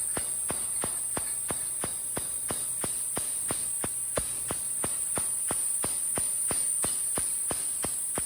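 TIG welding arc: a steady, very high hiss with sharp, evenly spaced ticks about three times a second.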